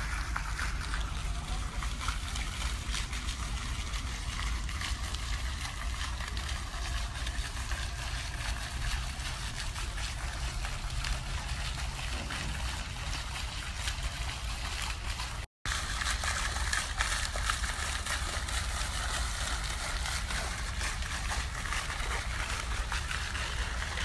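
Steady rushing outdoor noise with a deep low rumble, cut off by a brief dropout about two-thirds of the way through.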